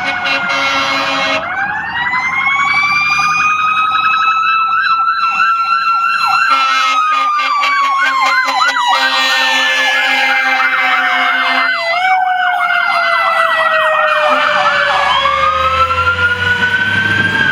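Fire apparatus sirens. A mechanical siren coasts down at the start, winds up again about a second and a half in, then slowly falls. An electronic siren warbles rapidly over it from about four seconds in, and a low air horn sounds in the middle. The siren winds up once more near the end.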